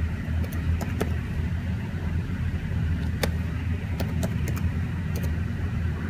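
Keys on a Panasonic CF-29 laptop keyboard clicking a handful of times, irregularly spaced, as a command is typed, over a steady low hum.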